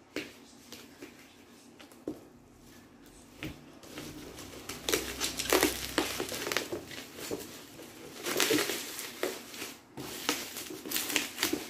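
Plastic bubble wrap crinkling and rustling as it is handled and pulled open. The first few seconds hold only faint handling with a few clicks, then louder bursts of crinkling come about halfway in and again near the end.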